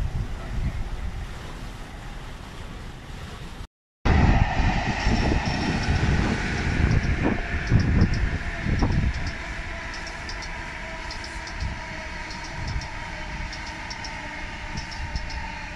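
A container freight train passing. After a sudden cut, an electric passenger train of Mark 3 coaches with a Class 82 driving van trailer passes, louder, with a steady whine and many light high ticks.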